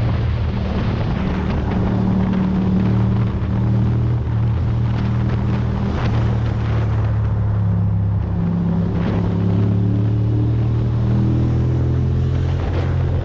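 Ducati Monster's L-twin engine running at a steady cruising pace while riding, with small shifts in pitch, over a haze of wind and road noise.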